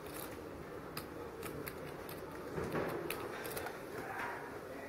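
Poker chips clicking as they are handled: a few sharp, irregular clicks over low room noise.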